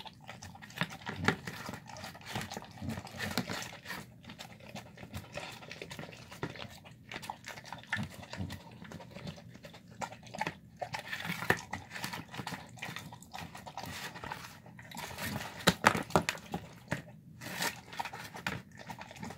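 A large dog eating a meal of chicken, rice, beans and tendons from a plastic tub: wet chewing and lapping with many irregular clicks and knocks of muzzle and teeth against the plastic. Near the end a louder cluster of knocks and scrapes as the tub is shoved along the tile floor.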